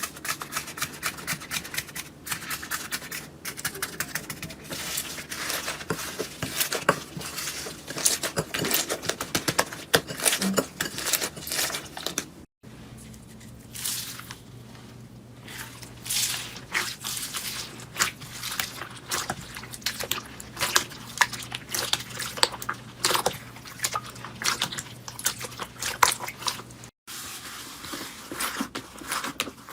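Slime being squished, poked and pressed by hand, giving a dense run of small crackling and popping clicks. The sound cuts off abruptly twice, about 12 seconds in and near the end.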